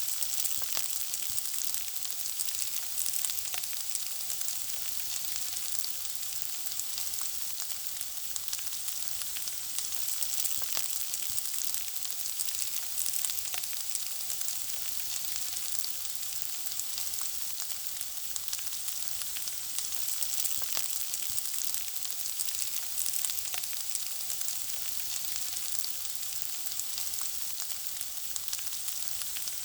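Food frying in hot oil: a steady sizzling hiss with frequent small crackles and pops.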